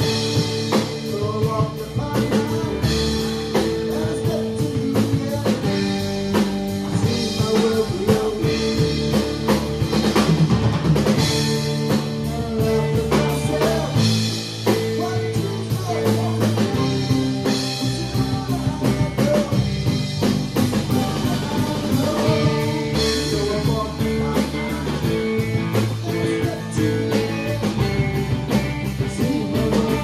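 Live rock band playing a song with a steady beat on a drum kit, electric and acoustic guitars.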